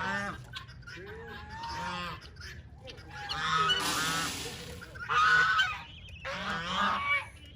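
Farm fowl calling, a string of honking calls one after another, with a short hiss about four seconds in.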